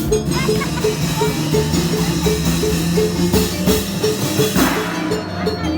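Obrog street-band music: drums and percussion playing a quick, steady repeating beat over held low bass notes, with cymbal-like strokes.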